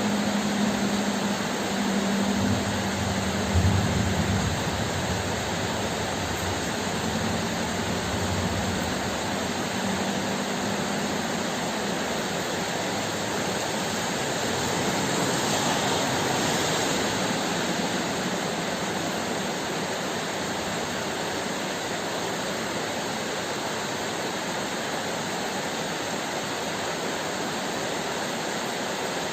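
Heavy rain falling in a steady hiss that swells briefly around the middle. A low steady hum underneath fades out about ten seconds in.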